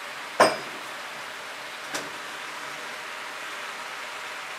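Cabbage cooking in a frying pan with a little water, giving a steady sizzling hiss. A sharp click about half a second in and a fainter one about two seconds in.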